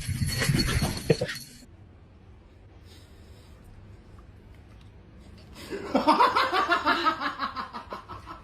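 A person laughing hard in a rapid run of laughs starting a little over halfway through, after a loud noisy sound in the first second and a half and a quiet stretch.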